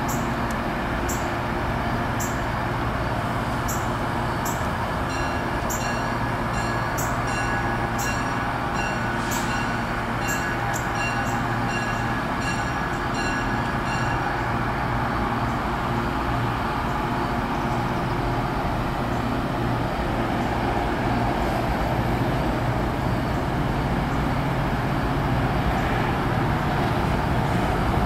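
MBTA diesel commuter train approaching slowly, its engine a steady low drone that grows louder near the end as it nears. Repeated sharp high ticks sound about once a second through the first half.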